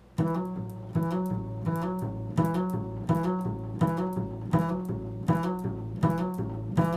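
Improvised instrumental music: a low plucked-string part picks out a steady repeating figure, about one note every 0.7 seconds. It starts a moment in, just as the spoken words end.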